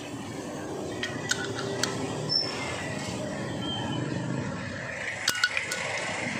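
Light metallic clicks and clinks of a valve-adjusting tool on the rocker-arm adjusting screw of a Kawasaki Rouser 135 single-cylinder engine, set during a valve-clearance tune-up. There are a few scattered ticks in the first half and a quick cluster of three near the end, over steady background noise.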